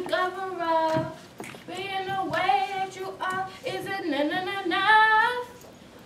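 A female voice singing unaccompanied in long held notes with short breaks between phrases; the singing stops shortly before the end.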